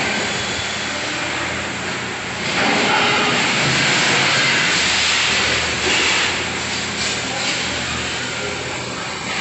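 Factory machinery running: a steady low hum under a loud hiss, which grows louder about two and a half seconds in.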